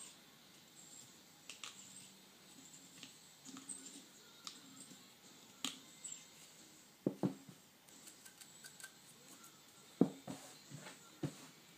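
Hand-turned steel crown cutter working on a 1911 pistol barrel's muzzle, giving faint scraping with scattered small clicks. About seven seconds in come a few soft knocks, and more near the end, as the cutter and barrel are pulled apart and set down on a towel.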